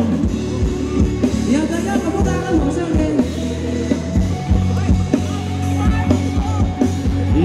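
Live band playing amplified Thai ramwong dance music: a singer's voice over drum kit and bass.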